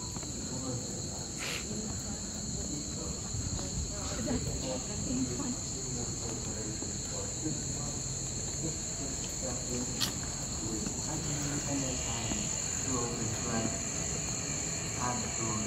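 Evening insect chorus: a steady, unbroken high trilling at two pitches.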